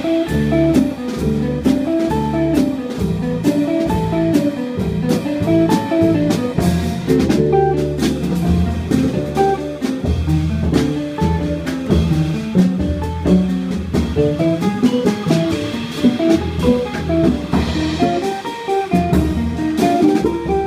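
Small jazz trio playing live: archtop electric guitar picking quick single-note lines over plucked upright double bass and a drum kit with busy cymbal and drum strokes.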